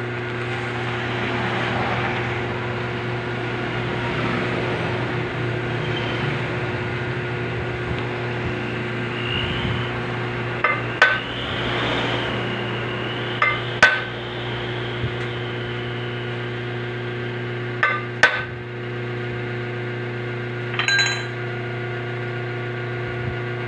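Sharp metallic taps and clinks with a short ring, coming in pairs several times, as a flywheel is centered and clamped in a lathe chuck. A steady low machine hum runs underneath.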